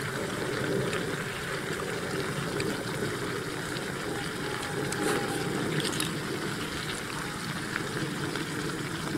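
Spicy dry pot of stir-fried food bubbling and sizzling in a steel wok on a tabletop burner: a steady hiss, with a few light clicks.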